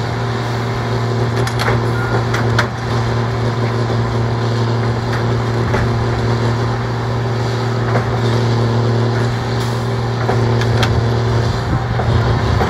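Engine of a rail-mounted tie removal machine running with a steady hum, with a few sharp knocks and clanks from the machine's tie-extraction gear as it works an old railroad tie out from under the rail.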